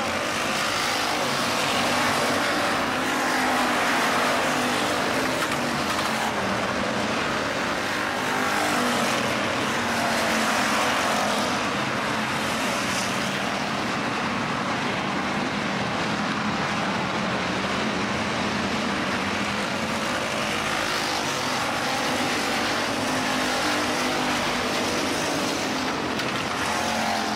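Pack of IMCA Hobby Stock race cars running laps, their engines a continuous racket that swells and fades as the cars pass.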